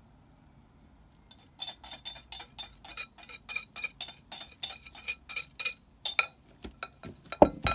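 A metal spoon rapidly clinking against a small glass bowl, about five taps a second, as salad dressing is scraped out onto the salad. It ends with a few slower, heavier knocks of glass and metal, the loudest near the end.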